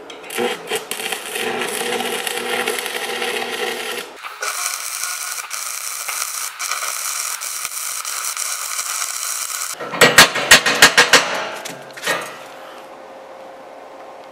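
Stick (MMA) arc welding with a 3.2 mm electrode at about 130 A: a steady crackling hiss of the arc on steel plate. About ten seconds in comes a quick run of about eight sharp knocks, the loudest part, after which only a low hum remains.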